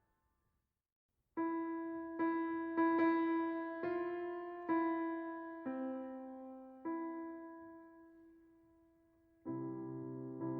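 Slow, gentle solo piano music: after a second or so of silence, single notes struck one at a time and left to ring and fade, with a fuller, deeper chord coming in near the end.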